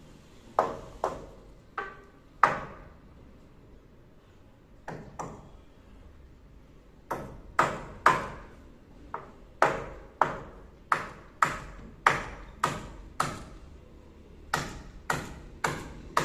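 Hammer driving nails into wooden purlins on roof rafters: sharp, ringing blows. A few come scattered at first, then from about seven seconds in they settle into a steady run of roughly two blows a second, with short pauses.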